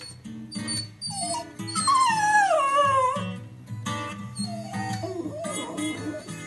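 A dog whining: one long, loud cry falling in pitch about two seconds in, then a weaker, lower falling cry near the end, over guitar music.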